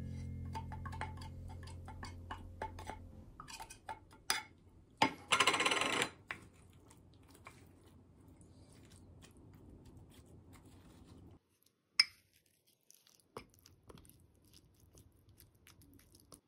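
A spoon scraping tuna from a metal can and clinking against the can and a ceramic bowl: scattered light clinks, a short scraping burst about five seconds in, and one sharp clink at around twelve seconds. Piano music dies away at the start.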